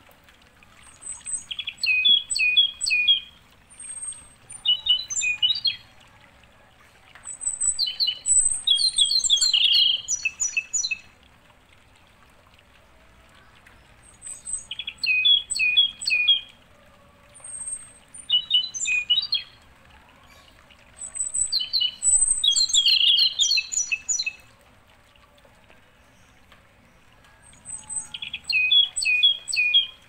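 Birdsong: short phrases of quick, high chirping notes, repeated about seven times with pauses of a few seconds between them.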